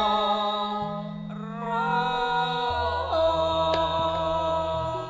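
Langgam Sragenan music: a voice holds long, wavering sung notes over a steady low accompaniment, with little percussion.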